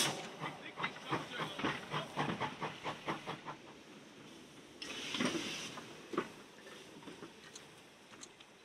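Lancashire & Yorkshire Railway 'Pug' 0-4-0 saddle tank steam locomotive pulling away with quick, sharp exhaust beats, about five a second, which fade over the first few seconds. About five seconds in comes a brief burst of steam hiss, then a single clank.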